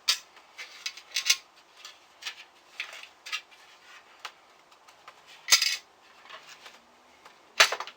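Handling noise of a monitor's stand being fitted: scattered clicks, clinks and rustles of metal and plastic parts, with the loudest knocks about five and a half seconds in and again near the end.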